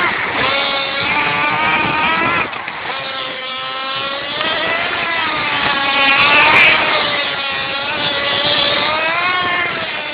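Radio-controlled car's motor whining, its pitch rising and falling again and again as the car speeds up and slows.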